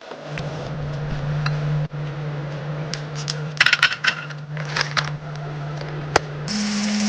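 A steady low motor hum with light clinks and clatters of small hard objects over it. Near the end the hum steps up in pitch and a hiss joins it.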